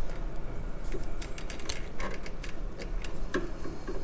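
Scattered light clicks and taps of metal-backed brake pads shifting in a motorcycle rear brake caliper as they are handled and pushed up against the pistons.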